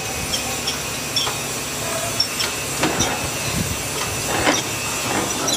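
Light metallic clinks and knocks, about eight to ten scattered through, some with a brief high ring, as metal pieces are handled at a workbench, over a steady hiss of shop noise.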